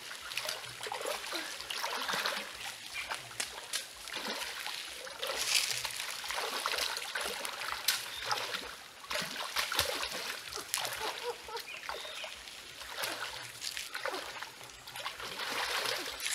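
Feet wading through a shallow, rocky stream, with irregular splashes over the water's steady trickle.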